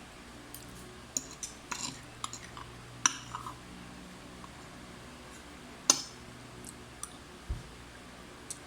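Cutlery clinking and scraping against a plate during a meal, in scattered sharp clicks: a quick cluster in the first few seconds, the loudest clink about six seconds in, and a short low thump near the end.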